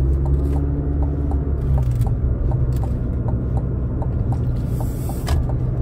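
The GMC Canyon Denali's 2.7-litre turbocharged four-cylinder engine heard from inside the cab as the truck drives off, a rough and loud steady low drone. A light ticking about three times a second runs over it, and a brief sharp sound comes about five seconds in.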